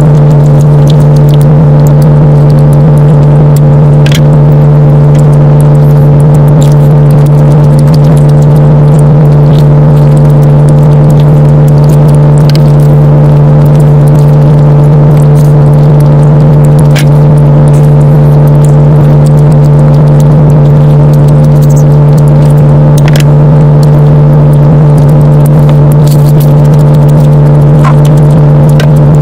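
A loud, steady low hum on one unchanging pitch with overtones, with a few faint clicks here and there.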